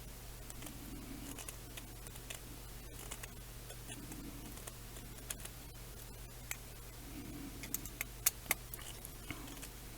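Small clicks, taps and scrapes of a hex driver working the arm bolts on a carbon fibre quadcopter frame while they are loosened and tightened. A few sharper ticks come close together about eight seconds in, over a steady low hum.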